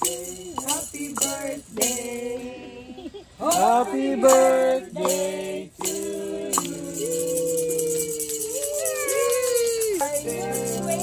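Background pop music with a beat and sung vocals.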